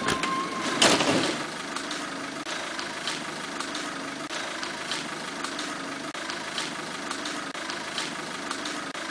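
Citroën Nemo van's engine idling steadily, with a short knocking clatter about a second in.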